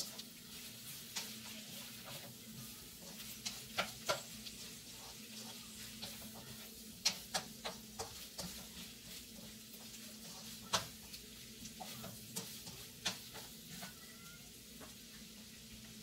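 Diced sausage and vegetables frying in a nonstick wok with a faint sizzle, while a plastic spatula stirs and scrapes them in irregular sharp clicks and taps against the pan. A steady low hum runs underneath.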